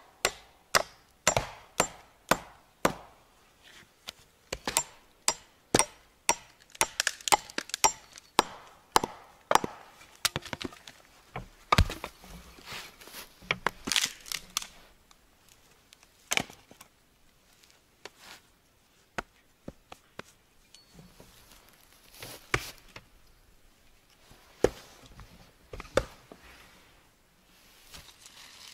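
Hatchet chopping wood, splitting kindling from a log: a quick, even run of sharp chops about two a second for the first ten seconds, then only a few separate knocks.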